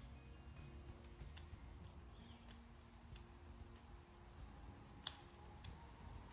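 Faint, scattered small clicks and taps of tools and latch parts being handled on a folding bike's stem, the sharpest about five seconds in, followed by a lighter one.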